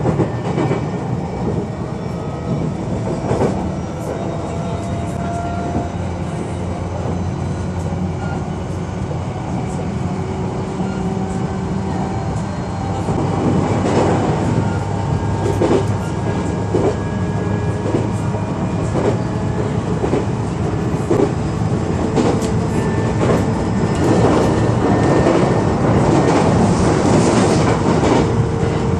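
Onboard running sound of a JR East E129 series electric multiple unit: a steady rumble of wheels on rail with a faint steady whine. From about halfway through, wheels clatter over rail joints and the sound grows a little louder.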